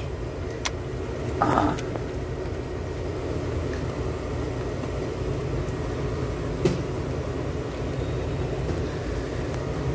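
Steady low rumble of a running vehicle engine, with a few light clicks and a short rustle as loose wiring and cable ties are handled under the dashboard.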